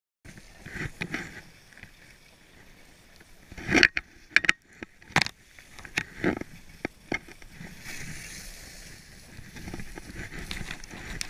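Skis sliding and scraping over snow on a downhill run, with a cluster of sharp knocks and scrapes in the middle.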